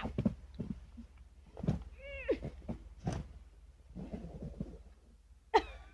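People squealing and laughing without words, in short high-pitched cries with a sharp yelp near the end, over a steady low rumble of wind on the microphone.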